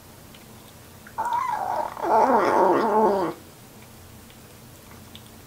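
A young kitten growling, a warning growl while a hand strokes it at its food bowl. It starts about a second in, grows louder, with its pitch sliding down again and again, and stops suddenly after about two seconds.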